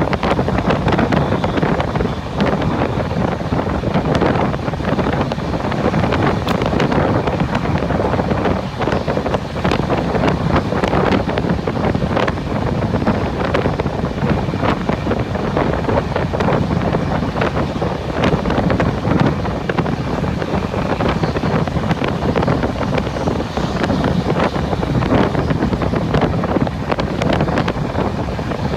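Train running at speed: a steady loud rumble with irregular rattles and knocks, and wind buffeting the microphone.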